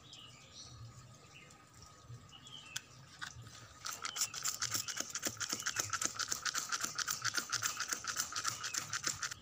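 Hand trigger spray bottle pumped rapidly, a fast, even run of spray squirts starting about four seconds in. It is misting liquid onto a leaf.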